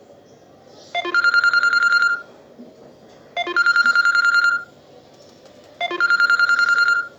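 A Samsung Galaxy J4+ call ringtone playing. A short rising run of electronic notes leads into a fast pulsing tone about a second long, and this repeats three times, about two and a half seconds apart.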